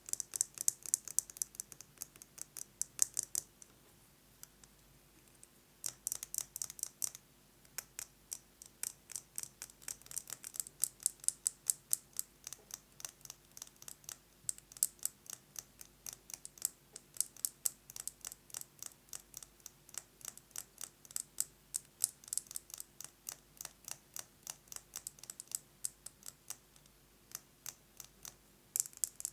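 Fast tapping on a metal lipstick case: quick runs of sharp, bright clicks, several a second. It stops for about two seconds a few seconds in, then resumes and keeps going.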